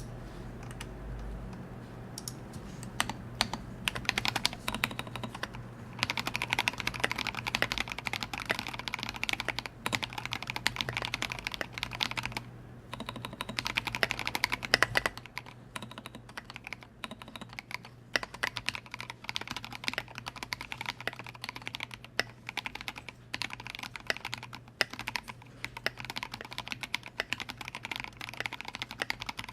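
Typing on a Duck Orion V2 custom mechanical keyboard with vintage Cherry MX Black linear switches on 58 g springs, an aluminium plate and SA-profile keycaps: a fast, continuous run of keystrokes broken by a few short pauses.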